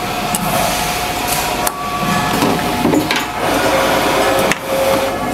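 Coil inserting machine running with a steady hum amid workshop noise, with a few sharp clicks and knocks, one about halfway through and one near the end, as copper coils are handled on its insertion tooling.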